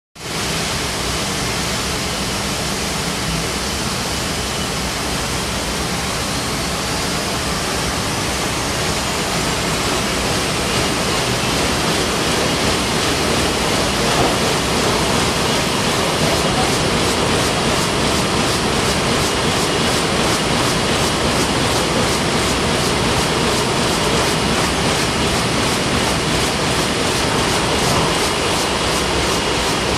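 Heidelberg sheetfed offset printing press running, a steady mechanical rush. A faint high whine glides upward a few seconds in, and a fast, even pulse comes through about halfway.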